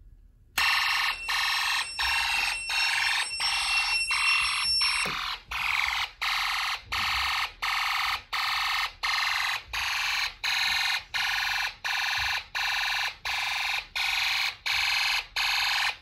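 Homemade Snap Circuits fire alarm sounding through its small speaker. It comes on suddenly about half a second in, as the pull-station switch is flipped down, and pulses at about two beeps a second: the system going into alarm. A thin steady high whistle runs over it for the first five seconds.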